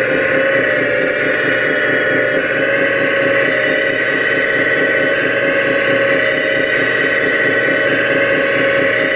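Radio-controlled scale Hitachi Zaxis 330 excavator running steadily while its boom and bucket work, a continuous mechanical whine made of several steady tones over a fast, even buzz.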